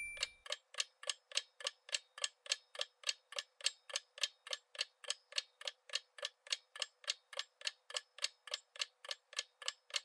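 Countdown-timer sound effect: a clock ticking evenly, about three and a half ticks a second, counting down the time to answer.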